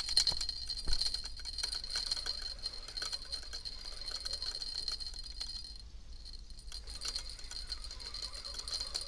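Spinning reel being cranked to wind in a feeder line: a dense, rapid mechanical rattling whirr that stops for about a second midway and then starts again.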